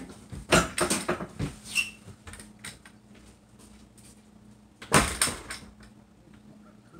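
A door being handled: a run of light knocks and clatters in the first two seconds, then a louder bang with a short rattle about five seconds in.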